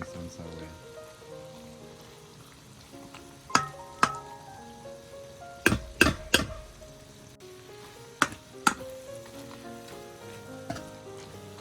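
Chicken karahi sizzling in a karahi wok, with a metal utensil knocking against the pan about seven times: twice a few seconds in, three quick knocks around the middle, then twice more.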